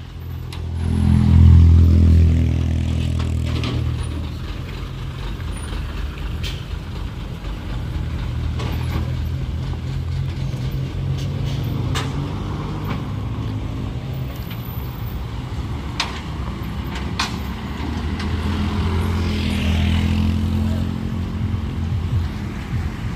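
Heavy truck's diesel engine running, revving up about a second in and again near the end, with a few sharp clicks and hisses.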